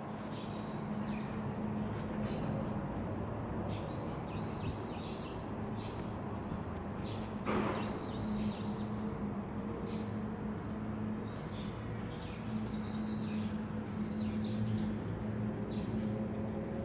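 Small birds chirping in short, repeated calls over a steady low hum, with a brief rustle about halfway through.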